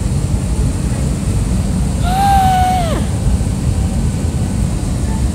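Steady low rumble of an airliner's engines heard inside the cabin. About two seconds in, a short high voice holds a note for about a second and then slides down.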